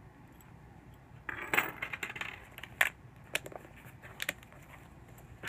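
A metal keychain, a split keyring with an enamelled medallion, clinking and jangling as it is set down on a wooden tabletop. There is a cluster of metallic clinks about a second and a half in, followed by a few sharp single clicks.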